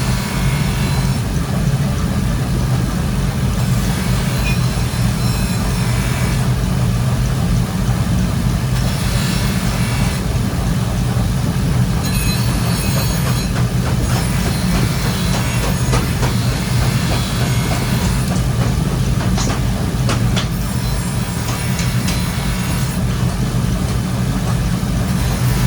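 Steady low machine drone of workshop machinery running, with a few sharp metallic clicks and knocks.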